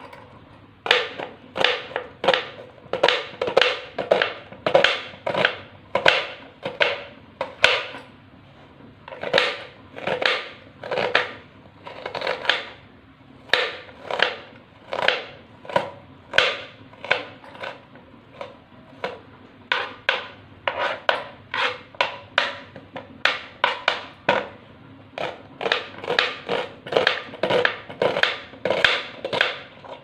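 Kitchen knife chopping a red onion on a plastic cutting board: a steady run of sharp knocks, about two a second, broken by a few short pauses.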